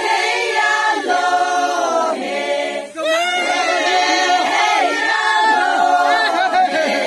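A group of Sangtam Naga women singing a traditional song together without instruments, in long held notes, with short pauses for breath about a second and three seconds in.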